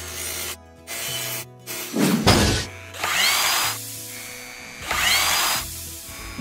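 Mechanical sound effects for an animated logo intro: robotic-arm servo whirs, with a sharp hit about two seconds in and two bursts of machine noise carrying quick rising whines, over a low hum and music.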